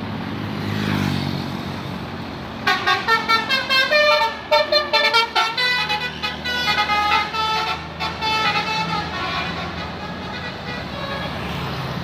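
Bus telolet horn of the Basuri V4 type, a multi-tone musical horn, playing a fast run of short notes that step up and down in pitch, starting about three seconds in and lasting about five seconds. Under it, the passing bus's diesel engine runs.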